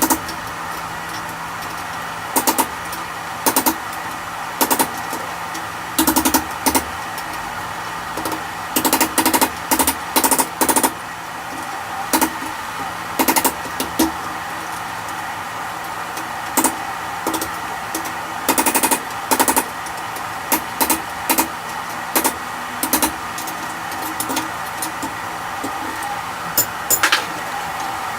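Hammer blows on steel, struck singly and in short irregular runs of a few quick strikes, over a steady background rush with a faint low hum.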